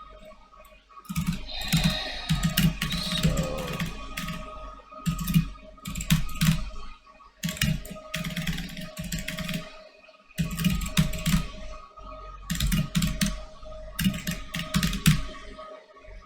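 Typing on a computer keyboard: quick runs of keystrokes in bursts, with short pauses between them.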